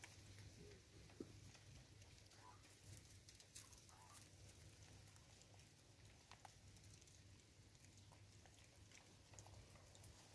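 Near silence: faint, scattered ticks and taps as vervet monkeys pick seed off a wooden stump and handle a plastic seed container, over a low steady hum.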